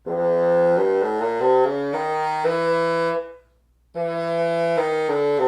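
A bassoon played with a reed that sounds flat, its wires just tightened, playing a short phrase of notes stepping down and back up; after a brief pause it starts the phrase again. It is a test of the reed's pitch and ease of playing.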